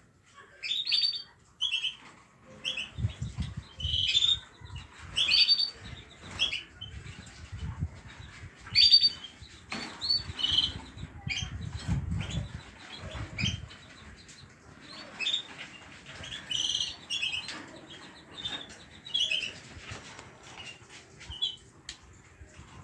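Small caged pet birds chirping in short, repeated high notes, with bursts of wings fluttering between about 3 and 14 seconds in.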